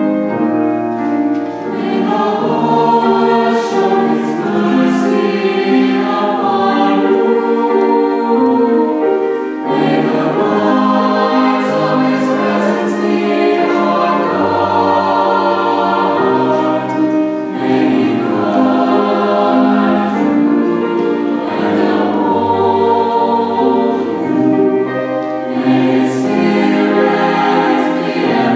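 High school chamber choir singing in harmony, many voices holding and moving through sustained chords.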